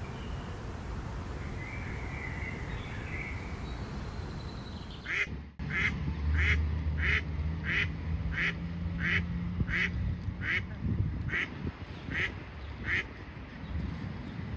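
A duck quacking in an even run of about a dozen quacks, roughly two a second, beginning about five seconds in, over a steady low hum. Before that, only faint background birdsong.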